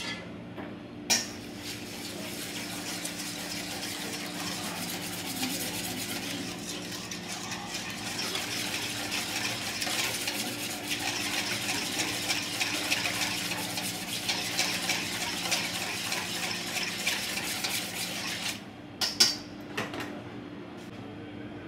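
Duck wings being cooked and handled in metal cookware: a dense, fine crackle with clinks of metal. It starts with a sharp click about a second in, stops suddenly a few seconds before the end, and a few knocks follow.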